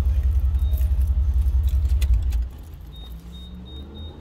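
A vehicle engine idling with a heavy, evenly pulsing low rumble that cuts off abruptly about two and a half seconds in, leaving a faint low hum.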